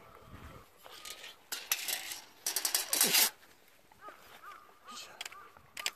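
Light metallic clinking and rattling of an electric-fence gate handle and wire being unhooked, loudest a little past halfway. Near the end come a few short chirping calls.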